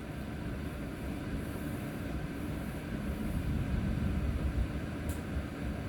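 Steady low rumbling noise, with a faint click about five seconds in.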